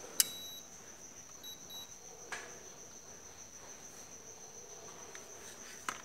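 An LG air-conditioner control board's buzzer answering remote-control commands: a sharp click with a short high beep, then two quick short beeps, showing the repaired board is powered and receiving signals. A couple of faint clicks follow, over a steady thin high-pitched tone.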